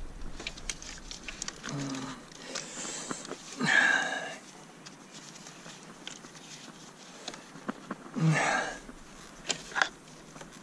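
Scattered small clicks and rattles of hands working wiring connectors in an engine bay, with two short breathy sounds from the mechanic about four and eight seconds in.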